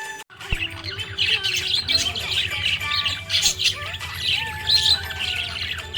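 Budgerigars chattering: a dense run of quick, high chirps and warbles that begins after a brief break at the start.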